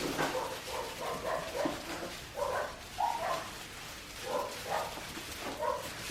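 A litter of 4.5-week-old Australian Shepherd puppies whining and yipping: a steady string of short cries, several puppies at once.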